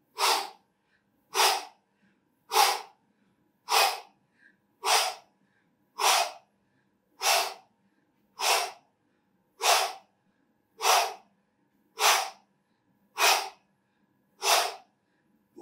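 A person breathing out sharply and forcefully with each repetition of a kneeling core exercise, about once every 1.2 seconds, thirteen short exhalations in an even rhythm.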